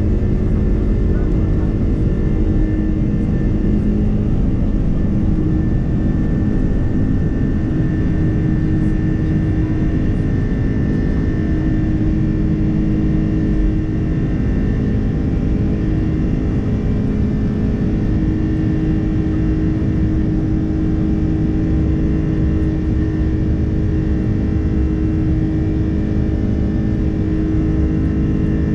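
Airbus A330-300's twin turbofan engines at takeoff power, heard inside the cabin from a window seat over the wing, through the end of the takeoff roll and the initial climb. A loud, steady rumble with a few steady humming tones on top, dipping slightly about halfway through.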